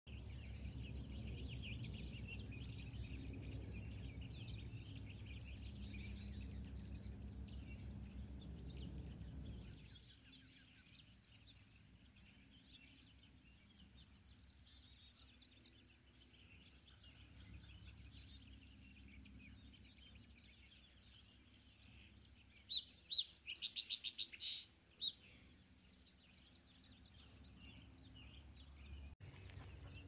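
Small wild songbirds chirping, with one loud, rapid trill of repeated high notes about three-quarters of the way through. A low rumble runs under the first third and stops abruptly.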